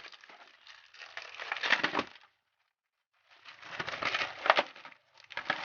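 Bubble wrap and plastic packaging crinkling and rustling as a package is unwrapped by hand, in two spells with a pause of about a second between them.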